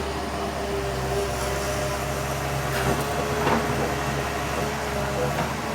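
Backhoe's diesel engine running steadily, with a couple of brief sharp knocks or cracks about three seconds in.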